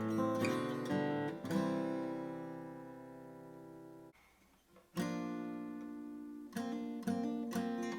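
Martin CEO-7 acoustic guitar being played: a few picked notes, then a chord left to ring and fade that is damped suddenly about halfway through. After a short silence a new chord rings out, followed by several more strums near the end.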